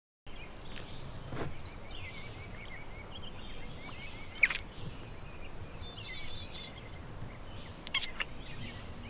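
Outdoor ambience of birds chirping in quick little trills over a steady hiss, with a few short wet smacking clicks of lips kissing, the loudest about halfway through.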